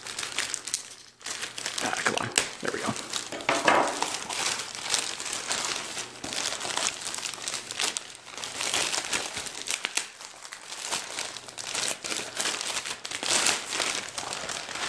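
Clear plastic bag wrapping crinkling and rustling in irregular crackles as hands work a photo album out of it.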